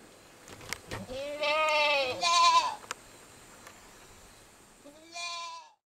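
A goat bleating: a long wavering call about a second and a half in, and a shorter one near the end.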